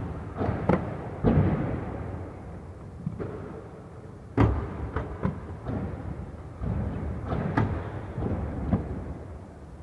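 Skates grinding along the metal edge of a skating box and landing on a hard floor, echoing in a large hall: a string of clacks and thuds with a rough sliding scrape between them. The loudest knock comes about four and a half seconds in.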